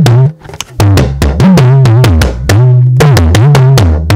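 Yoruba talking drum (gangan) struck with a curved stick in a quick run of strokes, the pitch of each note bending up and down as the drum's tension cords are squeezed under the arm.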